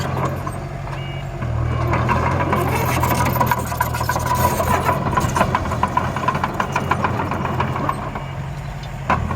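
Engine sound of miniature construction trucks running steadily, with many small clicks and rattles of soil and stones being moved over it.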